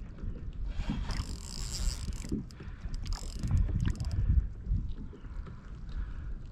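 Water sloshing against a fishing kayak's hull with wind on the microphone, with light mechanical clicks and a couple of brief splashy hisses.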